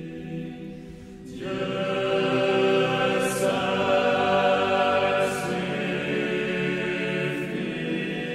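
Choral music: voices holding long, sustained chord tones like a chant, swelling louder about a second in, with a soft airy swell about every two seconds.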